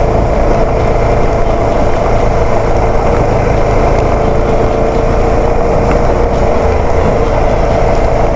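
Motorcycle engine running steadily under way on a rough, potholed road, with a constant low rumble underneath.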